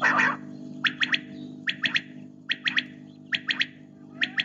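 Quail (batair) calling a quick three-note phrase five times, evenly spaced and less than a second apart. A short noisy burst comes right at the start, with a steady low hum underneath.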